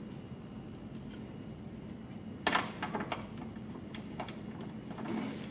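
Small, irregular metallic clicks and taps of a bolt being threaded in by hand into the door's window regulator mount, with a sharper cluster of clicks about halfway through.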